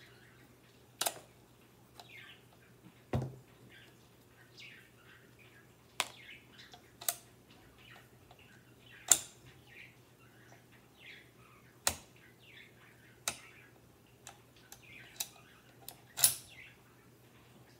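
Sharp metallic clicks and clacks from the slow-locking bolt of a Savage Rascal rifle being worked and drawn out of the receiver, about nine separate clicks at irregular intervals, the loudest about nine seconds and sixteen seconds in. Faint birds chirp throughout.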